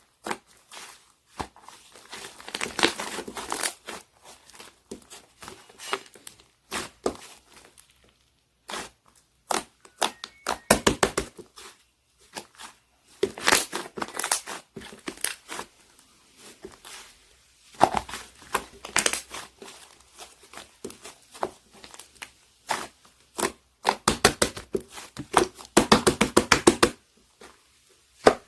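Slime with foam mixed in being kneaded and pressed by hand, giving sticky squelches and small popping clicks from trapped air. Several runs of rapid pops, the longest a little before the end.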